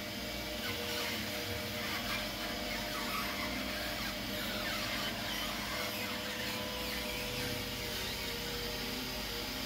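Motor-driven screw oil expeller running steadily, a constant machine hum with a steady whine as the screw presses seed or kernel and pushes the oil cake out of the press head.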